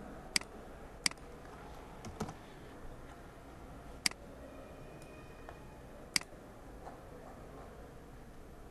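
A few separate, sharp clicks of a computer mouse and keyboard, about five spread over the span, with faint room hiss between them.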